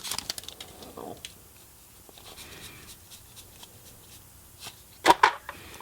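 Soft rustling and light clicks of a foil booster-pack wrapper and trading cards being handled, mostly in the first second, with a short louder burst about five seconds in.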